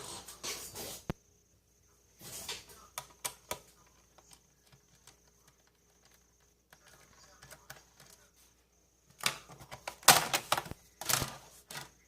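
Irregular clicks, taps and scraping of a laptop's plastic case being handled, coming in bunches, busiest near the start and again toward the end.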